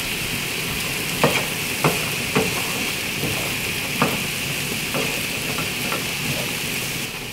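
Diced chicken and sliced mushrooms sizzling in a nonstick frying pan, with a steady hiss. From about a second in, a wooden spoon stirring them knocks and scrapes against the pan several times.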